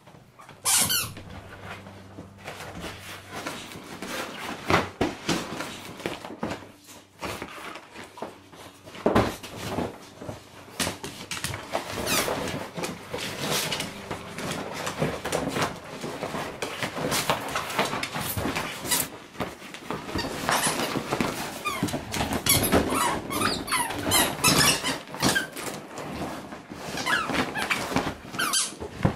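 Beagle biting, pawing and wrestling a giant inflatable vinyl rubber duck: the vinyl squeaks over and over as it rubs, with thumps and knocks mixed in, starting about a second in.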